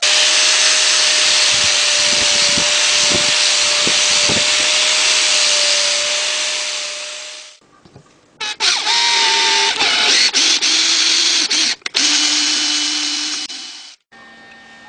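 An angle grinder runs against metal for about seven and a half seconds, a loud, steady, hissing grind. After a short pause, a power drill bores into a metal part held in a vise, stopping and restarting a few times before it cuts off near the end.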